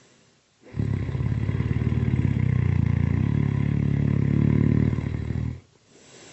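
One long, loud rattling snore lasting about five seconds, starting just under a second in and cutting off sharply, with quieter breathing on either side.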